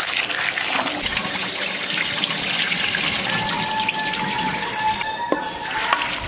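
Tap water running into a stainless-steel bowl of chopped pointed gourd (potol) in a steel sink, with a hand swishing and rubbing the pieces as they are washed.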